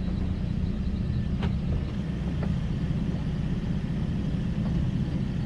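Toyota FJ Cruiser's 4.0-litre V6 running at a steady low idle, a continuous low rumble, with two faint clicks about a second and a half and two and a half seconds in.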